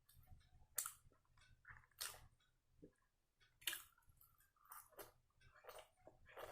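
A person chewing sambar vada, with short sharp mouth smacks and clicks about every second.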